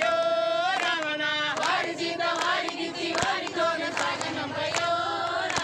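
A group of men and women singing a devotional bhajan together, with hand claps keeping time about once a second.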